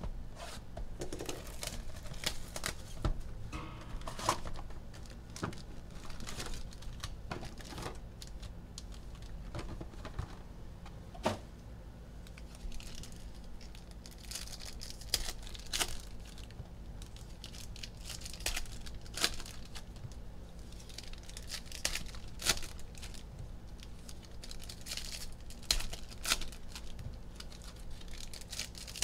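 Foil packs of 2020 Panini Mosaic hobby football cards being torn open and crinkled, with irregular sharp clicks and taps as the packs and cards are handled on the table.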